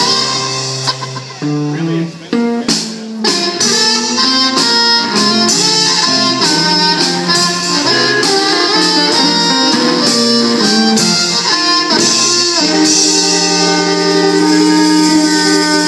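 Live electric blues band (electric guitar, bass guitar, drum kit and amplified harmonica) playing, with a busy run of guitar and harmonica notes over the drums. About thirteen seconds in the band settles onto one long held chord.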